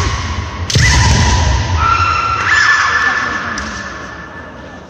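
Kendo fighters' kiai: long, drawn-out shouted yells, with a sharp hit less than a second in, a shinai striking armour, and the shouts fading toward the end.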